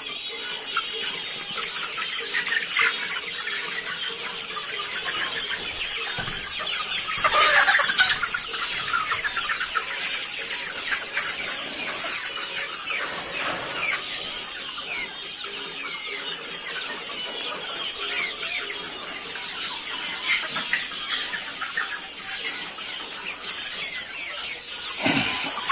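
Flock of desi (native free-range) chickens clucking and calling continuously, with a louder burst of calls about seven seconds in and another near the end.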